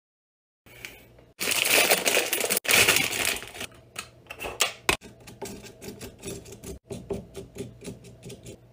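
Marker pen scratching and tapping over a dry block of instant ramen noodles. About a second in comes a couple of seconds of dense scratching, then a long run of quick, crisp ticks.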